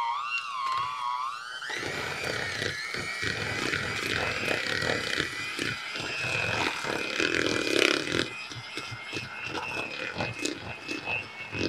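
Electric hand mixer running, its beaters churning thick softened cream cheese and chopped green chilies. The motor whine wavers in pitch for the first second or two, then holds steady, over a rattle of the beaters knocking and scraping the bowl.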